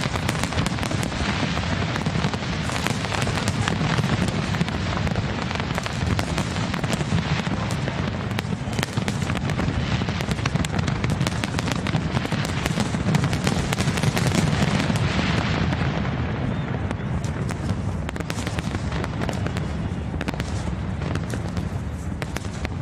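Fireworks display: continuous booming with dense crackling from many shells, the high crackle thinning out about two-thirds of the way through.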